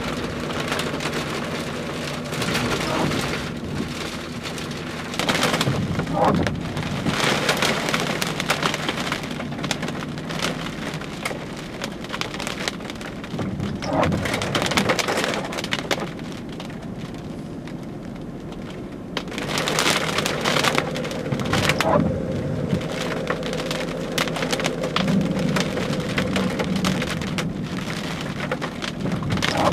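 Rain falling steadily, with many sharp individual drop hits close by and a low steady hum underneath.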